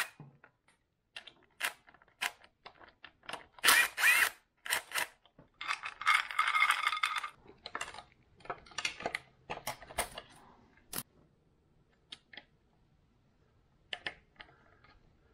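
Cordless drill-driver run in short bursts, its motor whine rising at each start, with a longer run about six seconds in. Metal tools and engine parts clink in between, fewer near the end.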